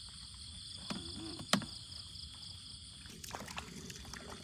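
Night insects, crickets, trilling steadily at several high pitches, with a sharp click about a second and a half in and a few lighter clicks and knocks later on.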